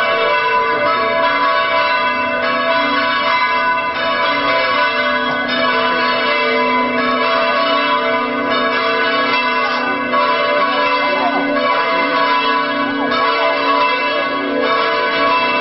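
Church bells ringing continuously, their tones overlapping into a steady peal.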